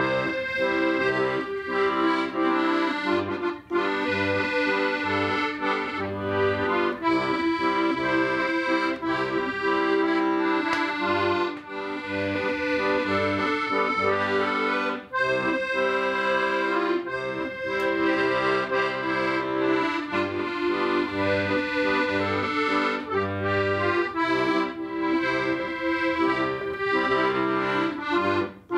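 Accordion playing a tune: held melody chords over a steadily pulsing bass.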